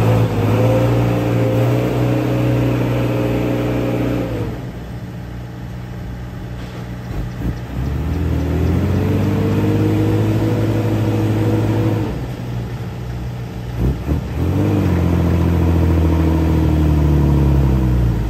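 Dump truck's diesel engine revving up three times. Each time the pitch climbs, holds high for several seconds, then falls back to a lower, quieter run, as the truck works its way across soft, dug-up ground.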